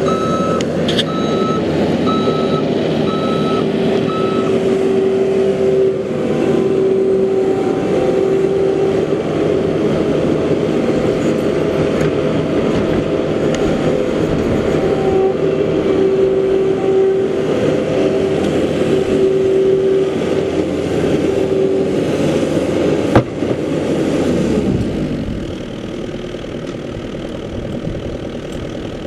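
Skid-steer loader engine running hard, its backup alarm beeping about once a second for the first few seconds. A steady whine comes and goes through the middle, then the engine winds down to idle about 25 seconds in.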